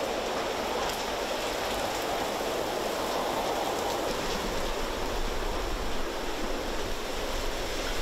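Heavy rain pouring down in a steady, even hiss.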